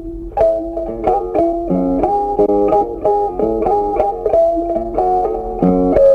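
Background music: a plucked guitar playing a steady melody of short notes over a lower bass line.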